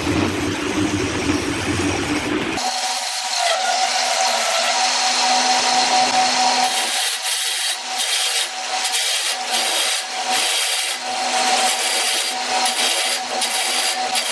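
Wood being rasped or sawn with regular back-and-forth strokes, about one and a half a second, over a steady machine hum. A lower rumbling noise cuts off abruptly about two and a half seconds in, before the strokes start.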